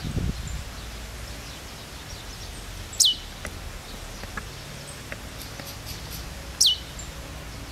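Lined seedeater calling: two short, sharp high notes, each dropping steeply in pitch, about three and a half seconds apart, over a faint low background hiss.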